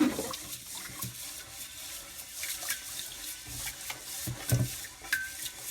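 Rice being washed by hand in water: steady splashing and swishing, with many small clicks.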